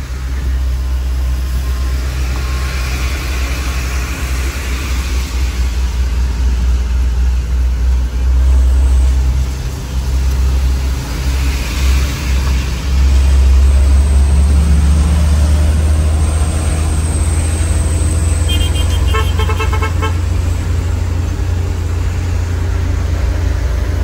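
Steady low drone of a truck's engine and tyre hiss on a wet road, heard from inside the cab. About three-quarters of the way through, a horn sounds briefly in quick pulses of a few steady tones.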